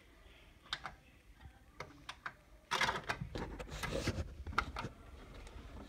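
Handling noise from a phone being moved by hand: a few sharp clicks, then about two seconds of rubbing and rustling starting around three seconds in, followed by more clicks.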